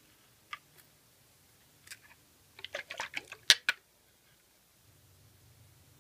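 Glass jar of iron filings being handled against a bar magnet: a few light clicks, then a quick run of sharp clicks and knocks from about two and a half to four seconds in, the loudest near three and a half seconds.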